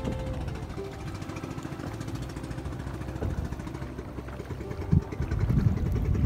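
A small boat's motor running steadily as the boat travels along the river, with a short knock about five seconds in and wind noise getting louder near the end.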